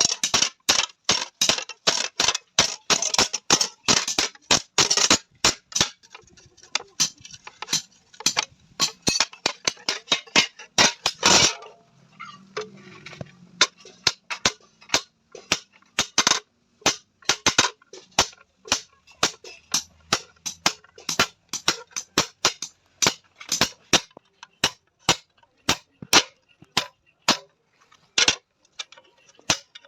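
Hand hammer striking a sheet-iron tawa on an anvil: a steady run of sharp metallic blows at about two to three a second, with one heavier blow near the middle.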